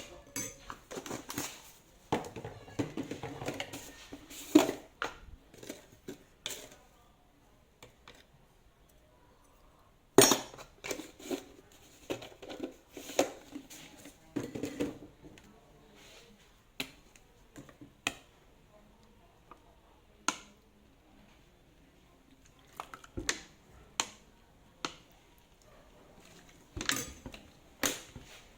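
Kitchen utensils and dishes clinking and knocking in scattered bursts, with quieter gaps between.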